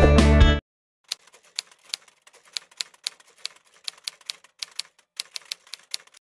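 Typewriter key-strike sound effect: sharp, irregular clicks, about three or four a second, as on-screen text is typed out. Guitar music cuts off abruptly just after the start.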